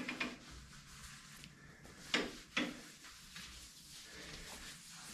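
A few light knocks, about two seconds apart and then two close together, with faint rubbing between them: metal parts being handled and a kerosene rag wiping down a metal lathe.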